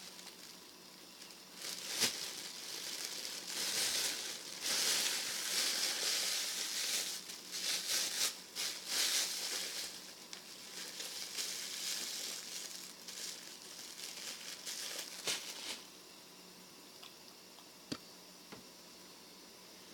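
Irregular rustling and crinkling handling noise, with a few sharp clicks, stopping about sixteen seconds in; a single sharp click follows near the end.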